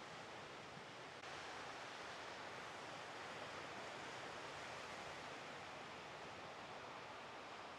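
Steady wash of breaking surf, an even rushing noise that steps up slightly and suddenly about a second in.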